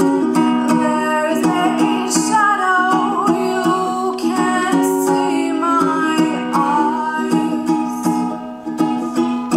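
Ukulele strummed in a steady rhythm, with a woman singing over it from about two seconds in.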